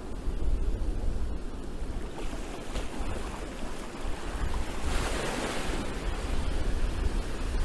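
Strong wind gusting across the microphone: a low, buffeting rumble under a rushing noise, with a gust swelling about five seconds in.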